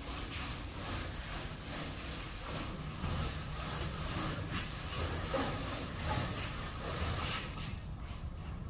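Rhythmic back-and-forth rubbing strokes on the floor of a refrigerated truck body, about two a second, stopping near the end: the floor surface being prepared so the glue bonds.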